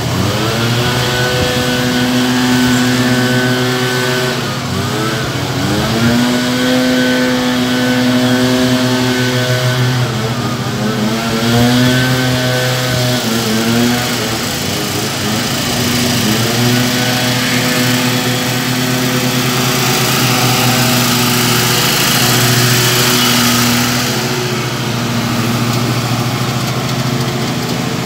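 Stand-on lawn mower's engine running steadily as it cuts grass, its pitch sagging briefly and coming back up several times.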